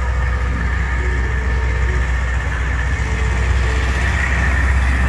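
Steady low engine hum, like a large engine idling, over a general outdoor hubbub.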